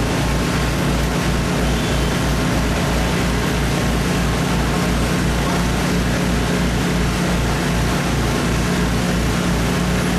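Engine running steadily at a constant speed, with a low, even throb about three beats a second.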